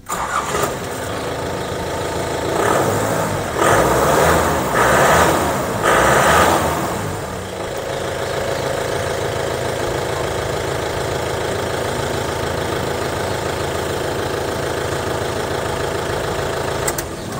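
Mahindra Major's factory-fitted turbocharged direct-injection diesel engine starting promptly. It is revved a few times, then settles about seven seconds in to a steady idle.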